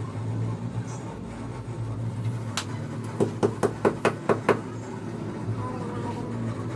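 Sharp taps from hand tool work on a car's tail-light assembly: one tap about two and a half seconds in, then a quick run of about seven, roughly five a second. A steady low hum runs underneath.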